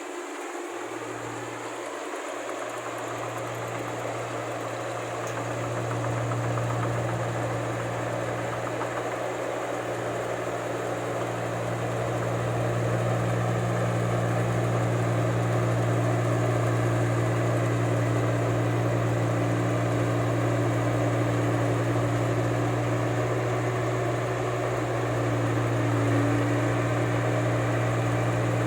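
Rice combine harvester's engine running with a steady low drone, growing louder over the first dozen seconds and then holding level.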